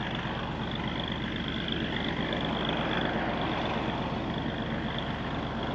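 A distant engine running steadily with an even low pulse.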